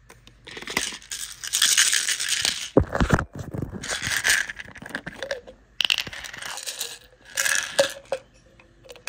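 Plastic toys being handled and rummaged through: irregular bursts of rustling and clattering with sharp clicks, and a dull thump about three seconds in.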